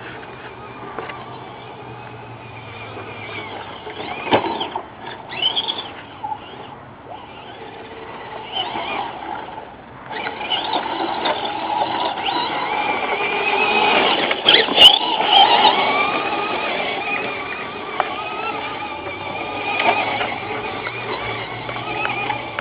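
Axial AX10 RC rock crawler with a 17-turn double electric motor driving fast, its motor and gears whining and rising and falling in pitch with the throttle. The whine is loudest about two-thirds of the way through, and a few sharp knocks come as the truck bounces over the track.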